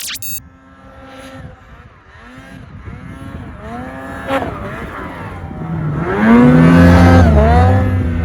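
Ski-Doo 850 Turbo snowmobile's two-stroke twin revving up and down as it rides in snow, growing louder and peaking about two-thirds of the way through. A sharp click at the very start and another about four seconds in.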